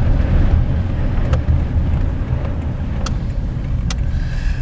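Steady low rumble of a car on the road, heard from inside the cabin, with a few light clicks.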